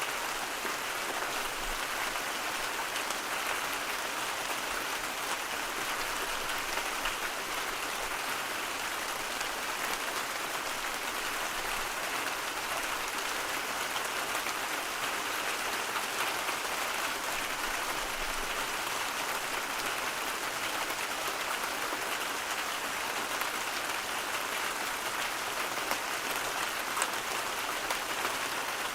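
Steady white-noise ambience: an even hiss with a fine, rain-like patter in it, unchanging in level.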